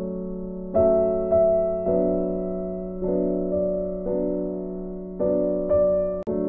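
Background music: soft piano chords, each struck and slowly fading, with a brief break near the end.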